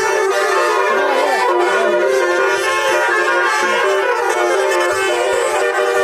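Telolet basuri musical air horns on buses and cars sounding together in a dense, loud mass of overlapping steady tones, with a few notes sliding in pitch about a second in.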